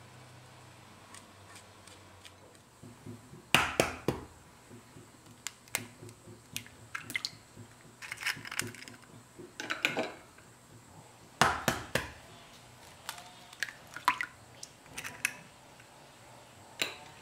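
Two eggs cracked one after the other into a glass mixing bowl: sharp taps of shell against the bowl, shell crunching and small clicks as each is broken open. The two loudest taps come about three and a half and eleven and a half seconds in.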